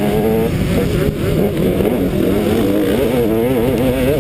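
Motocross dirt bike engine running hard on the track, its pitch rising and falling as the throttle opens and closes, with a few quick rev climbs in the second half.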